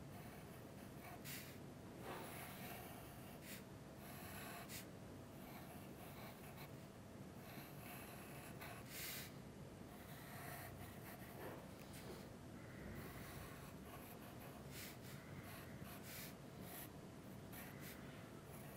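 Faint scratching of a wooden pencil drawing on paper, in short irregular strokes.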